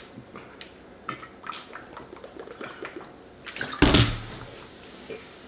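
Soda being gulped from a 2-liter plastic bottle: faint swallowing and liquid sounds, then a single loud thump just before four seconds in as the bottle is set down on the wooden table.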